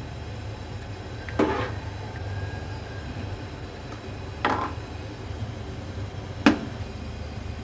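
Metal slotted spoon stirring rice in a large aluminium pot of boiling water, knocking against the pot three times, the last knock the loudest, over a steady low rumble.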